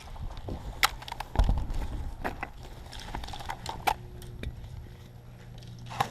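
Irregular sharp clicks and knocks, with a brief low rumble of movement noise about a second and a half in, from a player moving around during an airsoft game.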